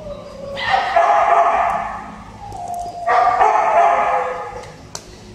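A dog gives two long, drawn-out howls, about a second and a half each, both sliding down in pitch.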